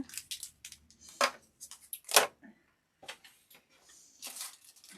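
Handling of small accessories and their packaging: a run of short clicks and rustles, with two sharper clicks about a second and two seconds in, and a softer rustle near the end.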